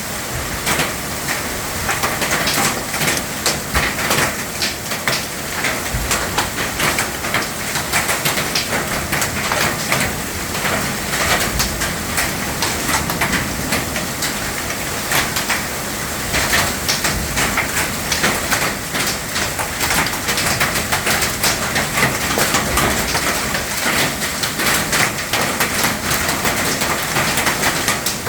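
Hail and rain pelting down, a dense stream of rapid, uneven sharp impacts over a steady wash of falling water.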